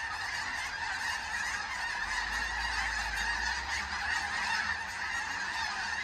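A huge flock of geese honking all at once overhead, an unbroken chorus of many overlapping calls.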